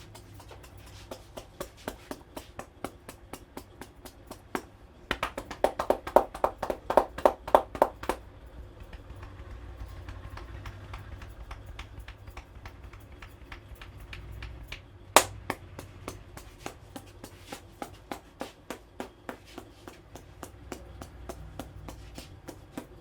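Rapid rhythmic hand strikes of a head massage, tapping and slapping several times a second. They come louder and fuller for about three seconds from about five seconds in, and there is one sharp, loud snap about fifteen seconds in.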